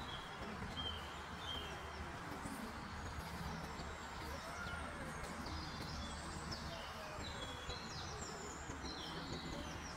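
Small birds chirping and singing in quick short calls and sliding notes throughout, over a steady low background rumble.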